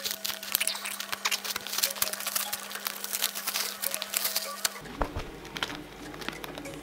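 Duct tape crackling and crinkling as a taped pattern shell is peeled off a foam fursuit head. It is a dense run of quick crackles that thins out about two-thirds of the way through.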